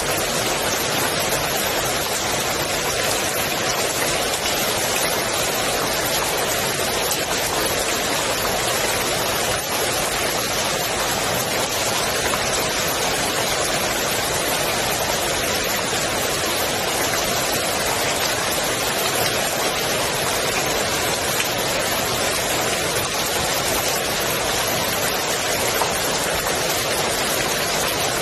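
Rain falling steadily onto the water of a swimming pool: an even, unbroken hiss of many drops.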